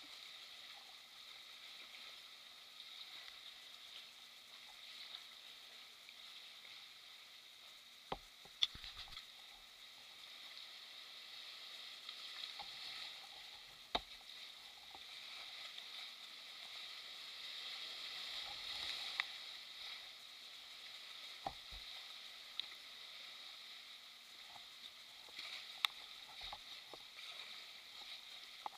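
Sea water sloshing and fizzing around a kayak's hull in a narrow rock channel, swelling slightly midway, with a few sharp knocks.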